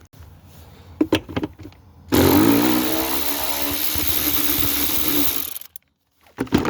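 A few light metallic knocks, then a power tool's motor runs loud and steady for about three and a half seconds and cuts off suddenly.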